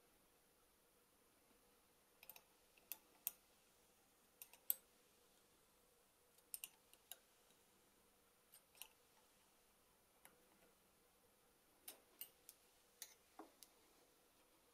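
Light clicks and taps of machined metal compound-slide parts being handled and set against each other on a lathe's cross slide, coming in scattered small clusters from about two seconds in until near the end.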